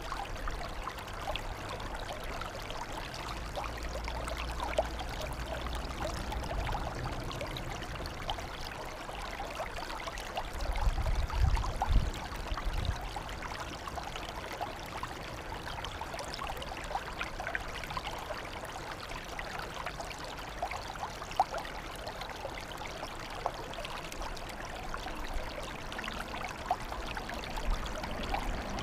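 Water trickling and flowing steadily, a continuous babble of small splashes and drips. A brief low rumble rises and fades about eleven seconds in.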